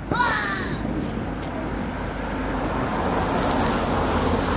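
Handheld blowtorch flame hissing against a wand firework until the firework catches about three seconds in and adds a brighter fizzing, crackling spray of sparks.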